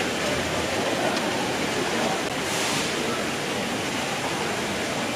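Steady rushing noise of a crowd in a large hall, with indistinct murmur of voices.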